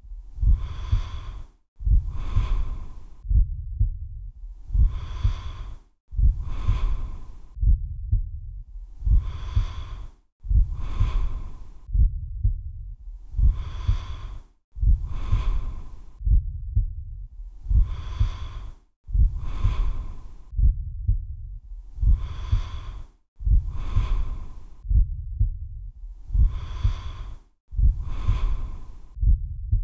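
Slow, close-miked human breathing, in and out, in an even cycle of about four seconds per breath, repeated seven times. A low, rapid thudding pulse runs under the breaths.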